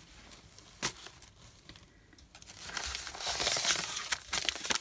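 Kraft paper packets rustling and crinkling as they are picked up and handled: a single sharp tap about a second in, then louder paper rustling through the second half.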